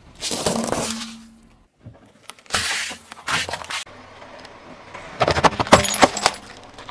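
A car tyre crushing objects on pavement: two crunching bursts in the first four seconds, then a run of sharp cracks and breaking glass about five seconds in as a glass candle holder gives way under the wheel.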